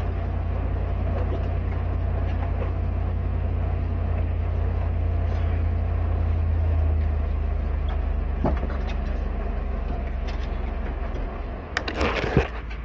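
Steady low rumble of a motor vehicle heard from inside it. A short burst of clattering comes near the end.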